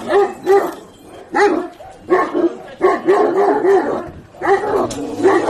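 Large dogs barking hard during a dog fight: quick runs of loud barks, about two or three a second, with short lulls between the runs.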